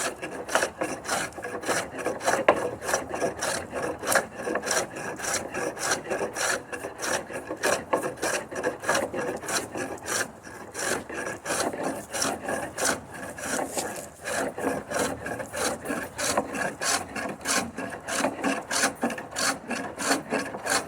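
Hand plane shaving a hickory slab in quick, short back-and-forth strokes, several a second, taking down the high spot in the middle of the slab.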